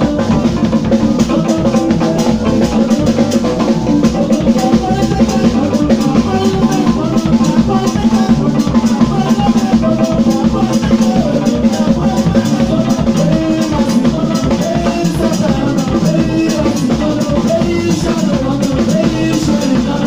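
Live band playing loud dance music: a drum kit keeps a fast, steady beat under a wavering melody line.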